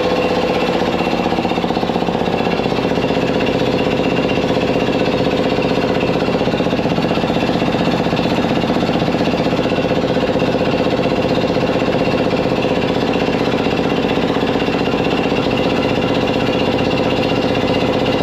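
Ingersoll-Rand Type 30 two-stage piston air compressor, belt-driven by a 5 hp electric motor, running steadily with a rapid pumping beat as it charges the tank. It now runs on because the blocked high-pressure discharge, where a bolt sat inside the flare nut, has been cleared.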